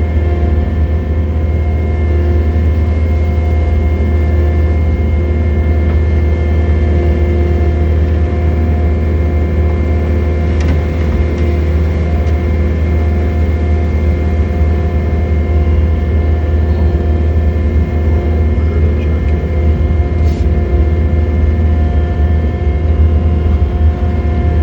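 John Deere 317 skid loader's diesel engine running steadily, a loud, even drone with a constant whine above it.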